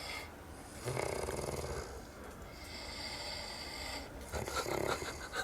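A person snoring: one snore about a second in, a hissing breath between, and another snore starting near the end.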